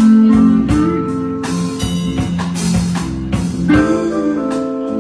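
Music: guitar-led instrumental with notes held and sliding, over a regular drum beat.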